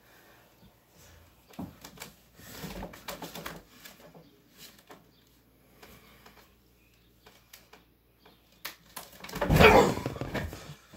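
A person leaping off a nightstand lands on a bed: one heavy thump with a rustle of bedding near the end, after a few faint knocks and shuffles from climbing on the nightstand.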